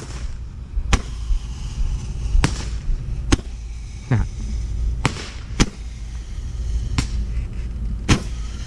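Consumer fireworks going off: a series of about eight sharp bangs at irregular intervals, one about four seconds in trailing off with a quick downward sweep.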